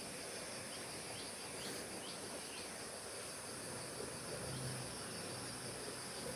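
Steady, high-pitched insect chorus of crickets or cicadas, with a few short bird chirps in the first couple of seconds over an even background hiss.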